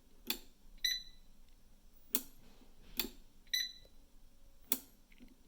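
Power Airfryer XL beeping twice, short high beeps, with four sharp clicks spread between them. The appliance is powering up and responding again now that its broken pan safety switch has been replaced.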